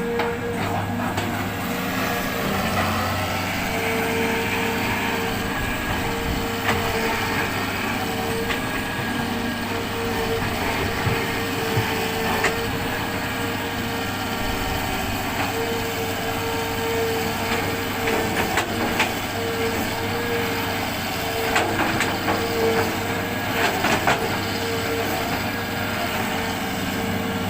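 Hitachi hydraulic excavator running under load: a steady diesel drone with a hydraulic whine that swells and fades as the arm and bucket move, and a few sharp knocks scattered through.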